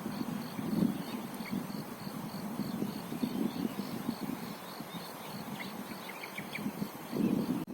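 Wind gusting and buffeting the microphone with a low rumble, while an insect chirps steadily in high, even pulses, about four or five a second, and a bird gives a few short chirps in the second half.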